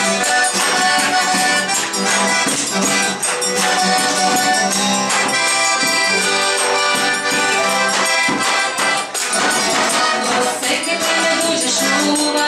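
Small live band playing an instrumental passage: accordion with acoustic guitar over a steady percussion beat.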